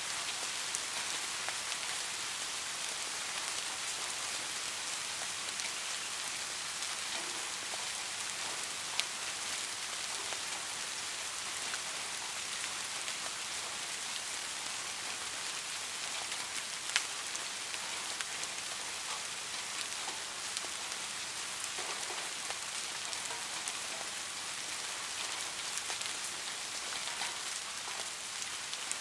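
Steady rainfall: an even, unbroken hiss with scattered ticks of single drops, two of them sharper than the rest.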